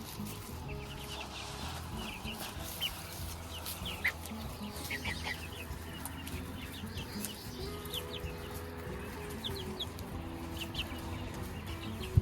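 A flock of young laying hens clucking, with many short, high peeps scattered throughout.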